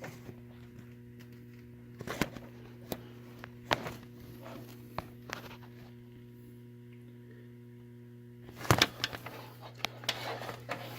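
Scattered metal clicks and knocks from hands and tools working on a VR6 engine's timing chain, busier near the end, over a steady electrical hum.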